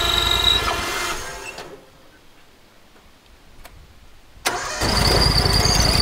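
Portable band sawmill's engine running steadily, then dying away about two seconds in. After a quiet gap it comes in again abruptly at full level, running steadily with a high whine over it.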